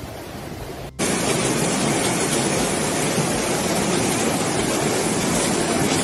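Storm wind buffeting the microphone. About a second in there is an abrupt cut to a louder, steady rushing roar of a storm or flood.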